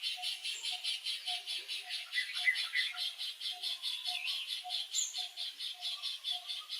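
Outdoor animal chorus: a fast, even high-pitched pulsing of about six beats a second, with a lower repeated note about twice a second, and a few short bird-like chirps over it.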